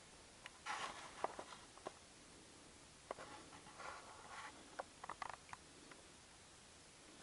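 Faint, irregular footsteps crunching on dry, rocky desert ground, with a few sharp clicks of stones underfoot. The steps come in two spells, one near the start and one in the middle.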